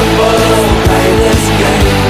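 Rock song in an instrumental gap between vocal lines: the band plays on with sustained instrument tones over a steady drum beat of about two beats a second.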